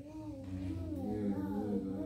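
A young child's voice singing or humming without words: long notes that waver slowly up and down in pitch, with no breaks between syllables.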